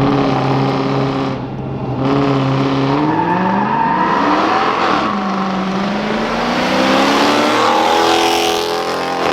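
Two cars, a twin-turbo Ford Fusion and a 2017 R/T, launching in a drag race. The engine note holds steady for a second or so, dips, then climbs in pitch again and again as they shift up through the gears and pull away.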